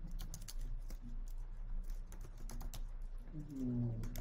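Typing on a computer keyboard: a run of quick, irregular key clicks over a steady low hum.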